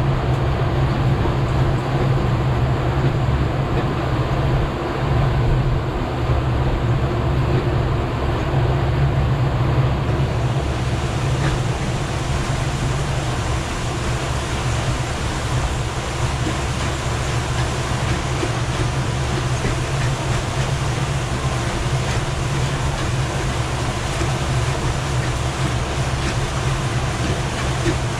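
Boat engine running steadily underway, a low drone with the rush of wind and wake over it; the hiss grows brighter about ten seconds in.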